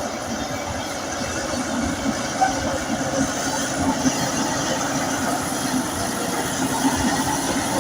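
Bulldozer's diesel engine running steadily, with a few sharper clanks about two and a half, four and seven seconds in.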